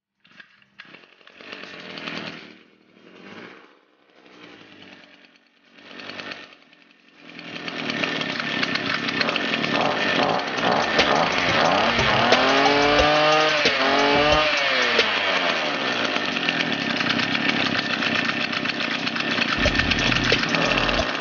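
Small 42cc two-stroke engine being pull-started: four short pulls of the recoil starter, then it catches about seven seconds in and runs steadily, its pitch rising and falling a couple of times as it is revved.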